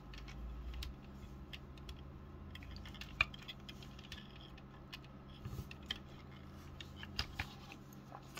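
Faint clicks and taps of hard plastic as a small action figure is handled and posed on a plastic toy motorcycle, the sharpest click about three seconds in, over a low steady hum.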